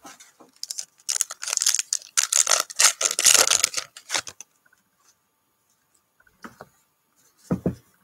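A foil-wrapped Panini NBA Hoops trading card pack being torn open and crinkled by hand for the first four seconds or so. Then a few light ticks and one short soft knock near the end.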